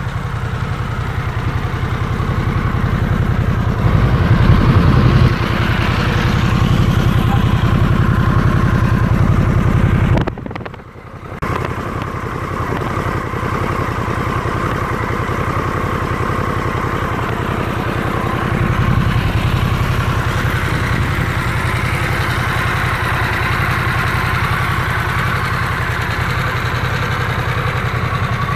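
Harley-Davidson Sportster S's liquid-cooled Revolution Max 1250T V-twin running on its stock exhaust, mostly idling, with a short rise in revs about four seconds in. Near the middle the sound drops away for about a second, then the engine is running again.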